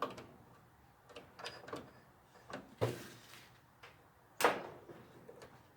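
Light clicks and taps of meter probes and handling on a dryer's timer terminals, with a louder knock near 3 s and another about 4.5 s in. No continuity beep sounds: the timer's contacts stay open.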